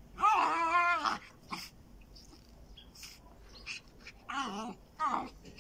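A schipperke dog whining at sheep through a wire fence: one wavering, high whine of about a second near the start, then two shorter whines near the end.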